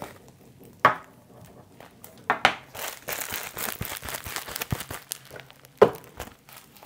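Packaging being unwrapped by hand: wrapping crinkling and rustling, with three sharp snaps.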